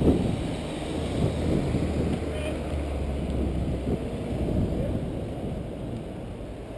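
Wind buffeting the microphone of a handlebar-mounted camera on a moving bicycle, a steady low rumble mixed with road noise.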